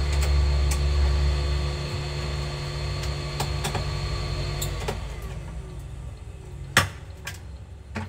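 Small clicks and knocks of a screwdriver and laptop hinge parts being handled on a workbench, the sharpest knock late on. Under them a steady motor-like hum runs and cuts off a little past halfway.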